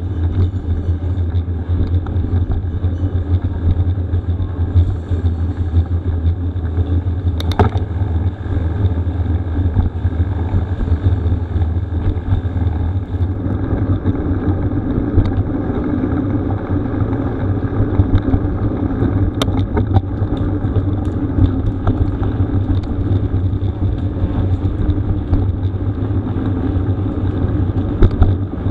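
Steady low rumble of a mountain bike's tyres rolling fast over a rough gravel road, mixed with wind buffeting the microphone, with occasional sharp clicks and rattles from stones and the bike.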